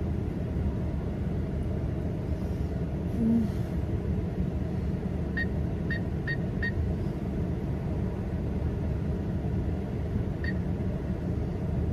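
Steady low rumble of a car heard from inside the cabin. Midway there are four short high beeps in quick succession, and one more near the end.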